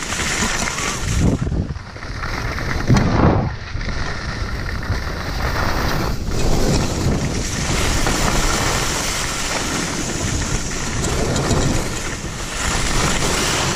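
Wind rushing and buffeting over the camera's microphone while skiing downhill, with skis hissing and scraping over packed snow; a stronger whoosh swells about three seconds in.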